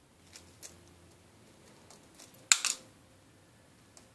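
Shell of a cooked egg being tapped and cracked by hand: a few light clicks, then a sharp cluster of cracks about two and a half seconds in.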